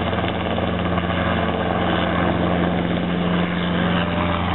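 Helicopter rotor and engine noise at close range: a steady, loud whirring with a constant low hum as a small helicopter lifts off and climbs away beside another helicopter running on the ground.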